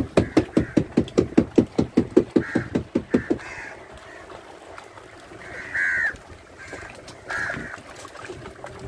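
Outdoor animal calls: short harsh calls every second or two, one near the six-second mark falling in pitch. For the first three and a half seconds they are topped by a loud, fast run of pulses, about six a second.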